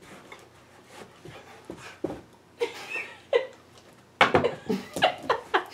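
A dog panting and giving short excited whines, with a louder run of quick, sharp sounds in the last second and a half as it goes for a tossed treat.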